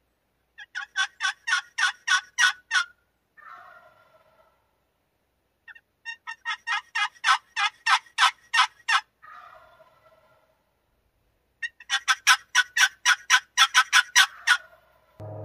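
A wild turkey tom gobbling three times, about five to six seconds apart, each gobble a fast rattling run of notes; the first two trail off into a softer, lower gurgle.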